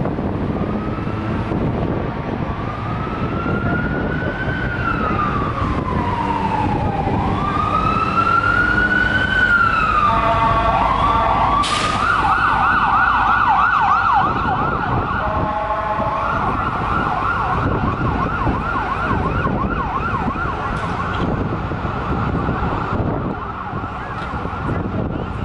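Emergency vehicle siren sounding through city traffic: a slow rising and falling wail for the first ten seconds or so, then switching to a fast yelp that keeps going, over a steady rumble of traffic.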